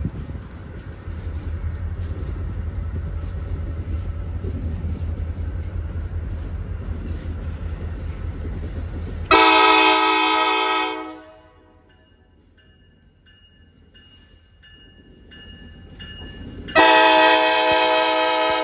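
Approaching diesel train sounding its multi-chime air horn in two loud long blasts, one about nine seconds in and another starting near the end, after a low steady rumble.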